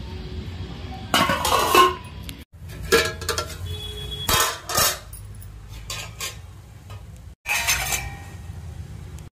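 Stainless-steel utensils clanking: four short spells of metallic clatter, the last as a perforated steel steamer plate is set on a pot, over a steady low hum.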